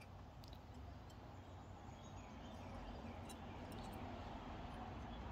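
Faint, steady background hum with a few light clicks of small metal brake parts and a spring being handled.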